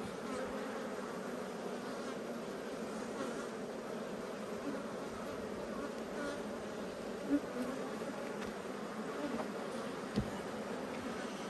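Honeybees from an opened, strong hive buzzing steadily, a dense, even hum. Two faint knocks come about seven and ten seconds in.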